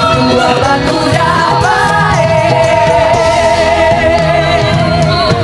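A female vocal group singing over band accompaniment; about two seconds in, a voice holds one long note with vibrato until near the end.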